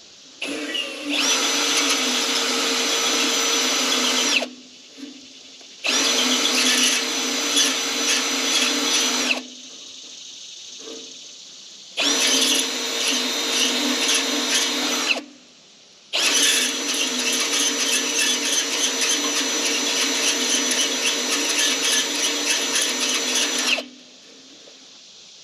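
Handheld power drill running in four separate runs, each a steady whine that starts and stops abruptly; the last and longest run lasts about seven seconds.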